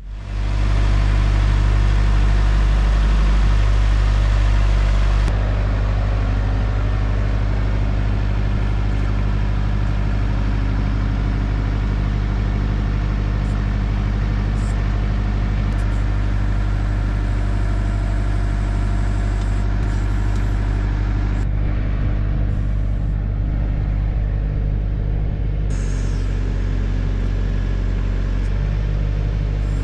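Tractor engine running steadily while working a backhoe attachment to dig planting holes in hard clay, slightly quieter after about five seconds.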